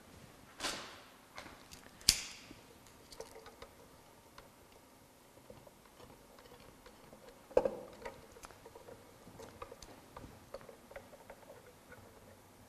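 Small sharp clicks and light rattles of three-pin Molex plugs and their wires being worked loose from a strobe power box's aluminium housing. The clicks come about half a second in, two seconds in (the loudest) and seven and a half seconds in, with faint ticking of handling in between.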